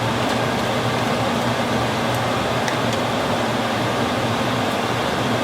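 Steady even hiss with a low hum underneath: kitchen noise while shrimp cook on the stove.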